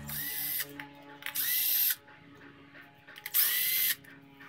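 Power drill-driver running in three short bursts of about half a second each, each opening with a brief rising whine as the motor spins up, backing out the bolts of a motorcycle's left crankcase cover.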